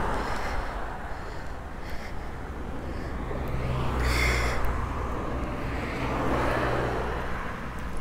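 Road traffic passing: a steady rush of tyres with a low engine hum, swelling about halfway through and again a couple of seconds later.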